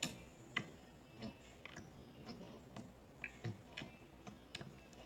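Slime being worked by hand, making faint, irregular little clicks and pops, about a dozen over a few seconds.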